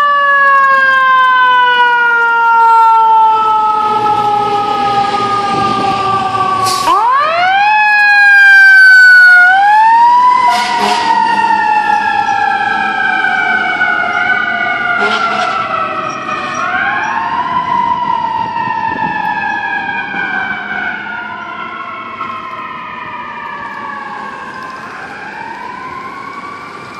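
FDNY fire truck mechanical siren, wound up about six times, each time rising quickly and then coasting slowly down in pitch. It grows fainter as the fire trucks drive away.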